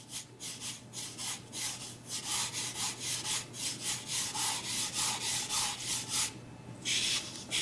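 A hand rubbing pastel into paper to blend it: quick back-and-forth dry rubbing strokes, about three a second, with a short pause and one longer stroke near the end.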